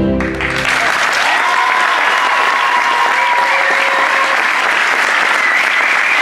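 The routine's floor music stops just as it begins, and a crowd breaks into steady applause, with a few held shouts of cheering over it.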